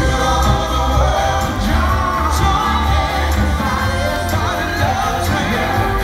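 Live band playing an upbeat soul song, several voices singing together over bass and a steady drum beat.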